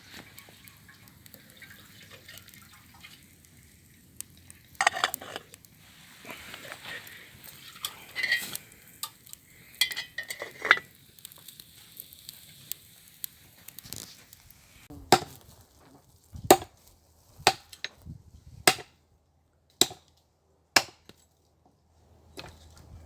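Scraping and rustling, with a few short high clinks, then six sharp knocks about a second apart.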